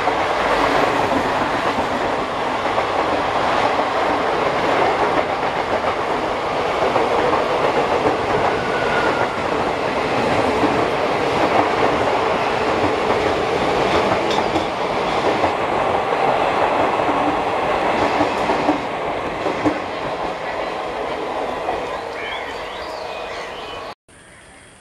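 Passenger express train's coaches passing at speed, a steady rush of wheels on rail running over the rail joints. The noise eases off over the last few seconds as the train goes by, then cuts off suddenly near the end.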